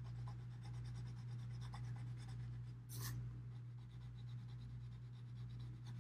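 Staedtler Mars Lumograph graphite pencil shading on drawing paper: faint, quick scratchy strokes, one louder stroke about halfway through. A steady low hum runs underneath.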